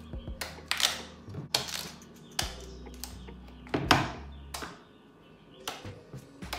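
Kitchen knife peeling the thick skin off a cassava root over a wooden cutting board: about ten irregular cuts and scrapes, the blade now and then knocking on the board.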